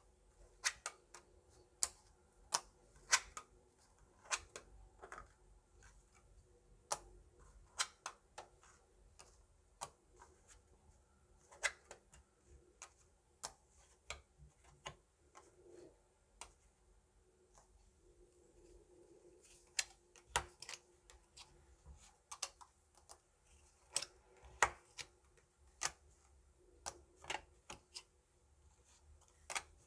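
Hwatu cards being laid and snapped down one at a time: sharp snaps at an uneven pace, with a few softer rustles in between.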